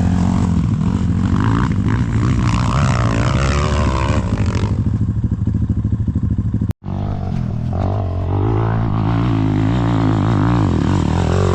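Enduro dirt bike engine running under load, its revs rising and falling. It breaks off for an instant a little over halfway through, then carries on.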